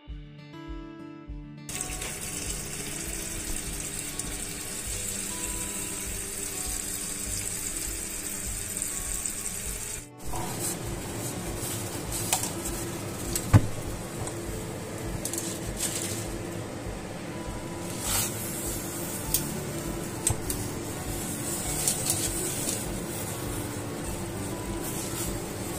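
Background music, joined about two seconds in by the steady hiss and bubbling of water at a rolling boil in a steel pot, with a few sharp clicks and knocks here and there.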